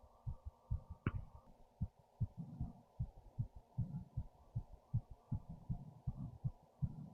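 A person's heartbeat heard up close: a steady run of low thumps, two to three a second, with one sharp click about a second in.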